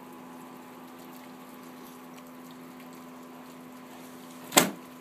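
A steady mechanical hum, with one short, loud sound about four and a half seconds in that falls in pitch.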